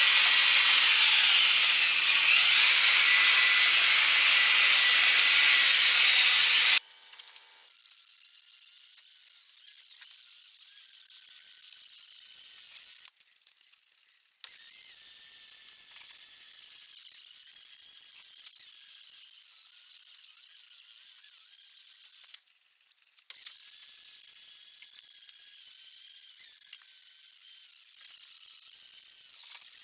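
A drill spinning a 3000-grit wet-sanding pad against a plastic headlight lens: a steady hissing grind with a faint wavering whine. It turns thinner and quieter about seven seconds in, and stops briefly twice.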